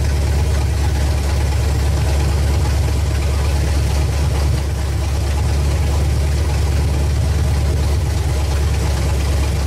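Small-block Chevy V8 idling steadily and loudly through open headers.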